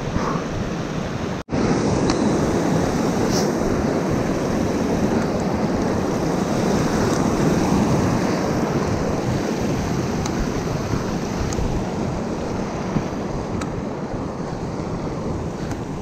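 Wind blowing across the microphone: a steady rushing noise that cuts out for a moment about a second and a half in.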